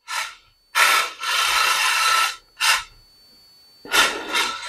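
Tiny 1:43-scale RC drift car sliding across a mat in short throttle bursts: a rasping hiss from its tyres skidding, four times, the longest about a second and a half.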